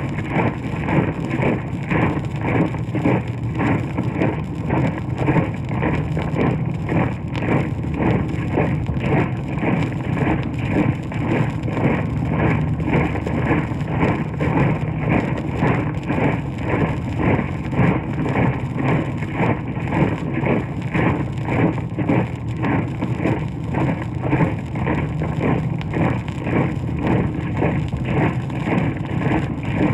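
Sound-effects recording of many marching feet: massed footfalls tramping in a steady, even rhythm, played from a 78 rpm disc with its surface noise underneath.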